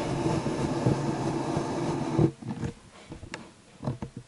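Rough plastic scraping and rattling as the opened printer's parts are handled. It lasts about two seconds and stops abruptly, then a few light clicks follow.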